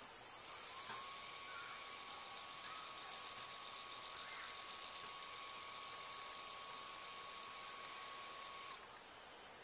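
Small brushless outrunner motor driven by an electronic speed controller, spinning up as the throttle climbs to full. It gives a steady high-pitched electronic whine, joined by a fainter mid tone about a second in, and cuts off suddenly near the end.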